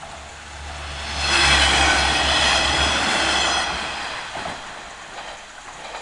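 A train on the JR Hachikō Line passing over the level crossing, rising to its loudest about a second in and fading away after about three and a half seconds.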